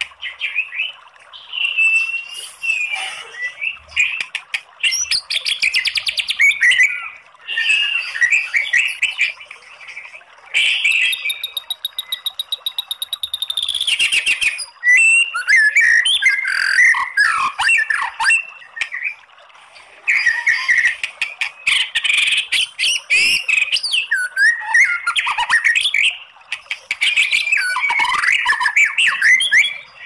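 White-rumped shama singing a long run of loud, varied phrases: whistles, sharp calls and rapid crackling 'kretekan' notes. About a third of the way in comes a fast rattle of evenly repeated notes lasting about three seconds.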